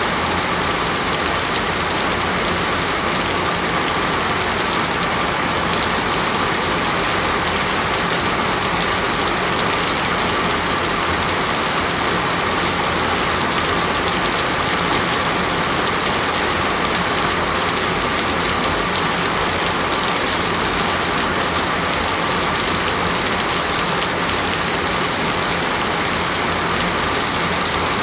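Steady heavy rain falling on a surface, a dense even hiss of drops without letup.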